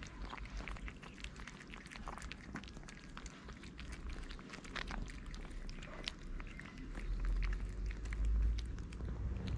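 Several cats eating dry kibble and wet food from a plate: rapid crunching and chewing, heard as many quick irregular clicks. A low rumble swells about two-thirds of the way through and is the loudest sound.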